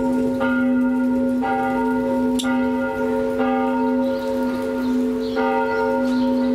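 Church bell ringing, struck about once a second, with its low hum sounding on steadily between strikes.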